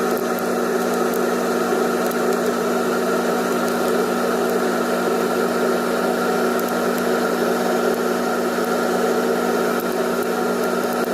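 Electric motor running at a steady speed: a constant low hum with a whirring noise over it.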